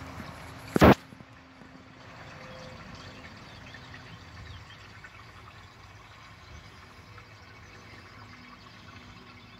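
A single loud knock just under a second in, then faint, muffled water noise with small scattered clicks and drips as a camera is moved underwater through an aquarium.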